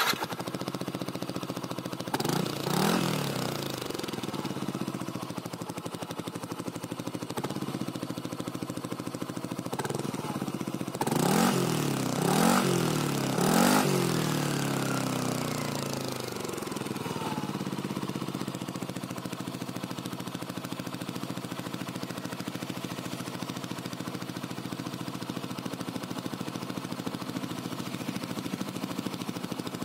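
Yamaha NMAX scooter's single-cylinder engine idling through its stock muffler, reworked with two outlet holes. The throttle is blipped briefly about two seconds in, then three quick revs come around the middle, and the engine settles back to a steady idle. The exhaust note is slightly raspy and open rather than muffled.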